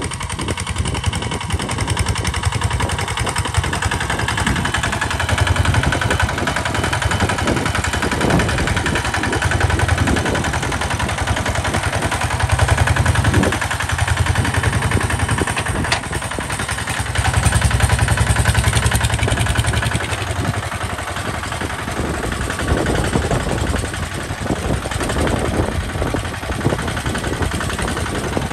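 Single-cylinder diesel engine of a two-wheel walking tractor running steadily under load while pulling a disc plough through sandy soil: a fast, even beat that grows louder and softer from time to time.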